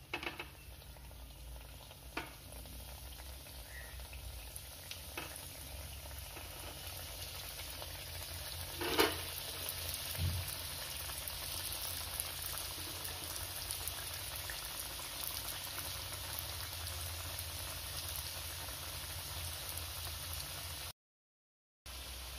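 Chicken vadas deep-frying in hot coconut oil: a steady sizzling and bubbling that grows a little louder as more vadas go into the pan. A few sharp clicks are scattered through it, the loudest about nine seconds in. The sound cuts out completely for about a second near the end.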